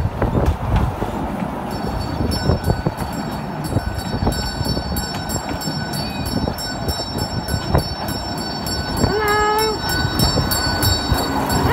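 Fairground kiddie train running round its track: a steady rumble with a fast, regular ticking. About nine seconds in there is one short, horn-like toot.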